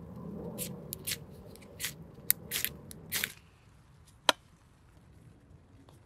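Ferrocerium fire-steel rod scraped with a striker: about seven quick, sharp scrapes in under three seconds, throwing sparks to light kindling. One sharp click follows about a second later.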